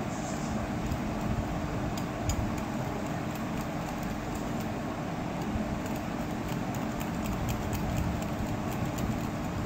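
Small wire whisk beating a thick mayonnaise-and-cream mixture in a glass bowl, with light irregular clicks of the wires against the glass, over a steady low hum and hiss.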